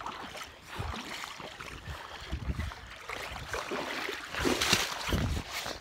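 Legs in waders sloshing and swishing through creek water, step by step, then boots scrambling up onto the leafy bank near the end, which is the loudest part, with rustling and thuds.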